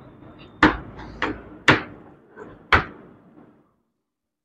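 Chalk tapping and scraping on a blackboard as words are written, with four sharp clicks over about two seconds.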